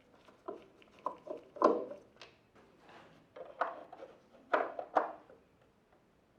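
Irregular clicks and knocks of a Nespresso De'Longhi capsule coffee machine's parts being handled and taken apart, the sharpest knocks about a second and a half in and again past four and a half seconds.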